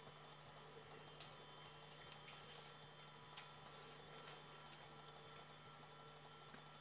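Near silence: a steady low electrical hum, with a few faint ticks.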